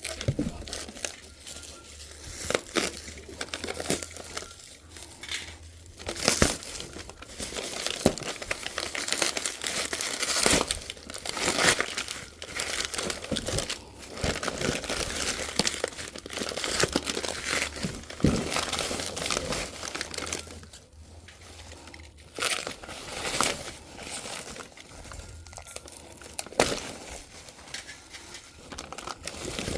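Packaging being unwrapped by hand: plastic wrapping crinkling and tearing in irregular bursts, with occasional sharp knocks, easing off briefly about two-thirds of the way through.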